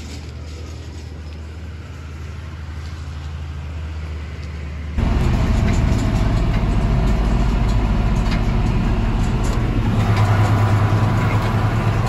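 A steady low engine hum, then suddenly much louder about five seconds in: a John Deere tractor's diesel engine running as it drives along a paved road, heard from the cab, with a strong low engine drone and road noise.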